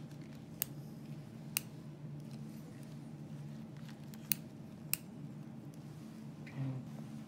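Surgical scissors snipping suture ends on a freshly stitched facial wound: four sharp, short snips, two in the first two seconds and two more a little past the middle, over a steady low hum.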